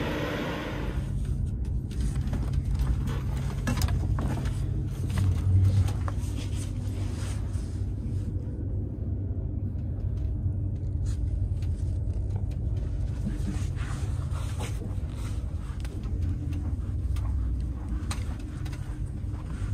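Steady low rumble inside the coach of an Alstom Euroduplex high-speed train running along the line, with scattered light clicks and rattles from the carriage.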